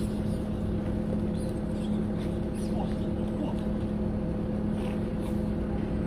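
Engine of the forklift holding up the concrete slab, running steadily with an even hum.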